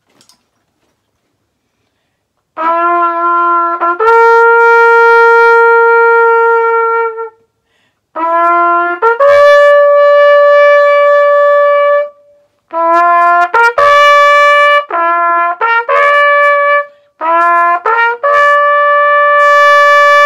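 Solo brass trumpet playing a slow melody in four phrases, starting about two and a half seconds in. Each phrase opens with a few short notes stepping upward and ends on a long held note.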